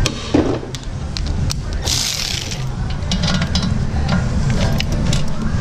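A pneumatic air ratchet runs in one short burst about two seconds in, backing out a rear brake caliper bracket bolt. Scattered metal clinks and clicks come as the bolts and the caliper bracket are handled, with a steady low hum underneath.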